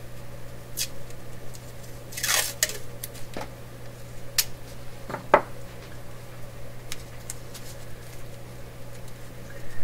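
Green masking tape being pulled off its roll and torn: a short ripping sound about two seconds in, among light clicks and rustles of handling, with one sharp click about five seconds in.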